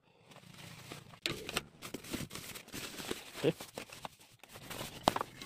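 White plastic packaging rustling and crinkling as it is handled, with a few sharper knocks mixed in.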